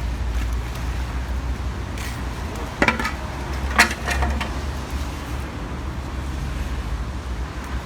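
Low steady street-traffic rumble, broken by a few sharp metallic clanks about three and four seconds in.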